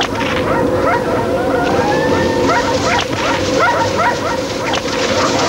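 A team of sled dogs yipping and barking rapidly, several short rising yelps a second, with one longer whining howl about two seconds in, over a steady low tone.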